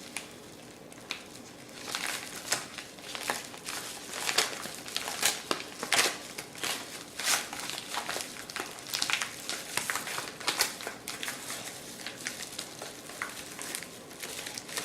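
A shipping package being opened by hand, its packaging crinkling and rustling in irregular bursts from about two seconds in.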